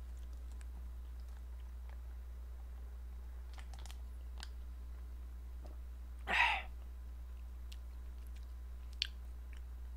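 A person sipping instant ramen broth from the foil bag in a bowl: faint mouth clicks and lip sounds, with one louder, short slurp about six seconds in.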